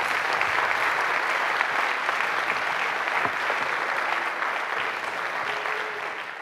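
Audience applauding, steady and then fading out near the end.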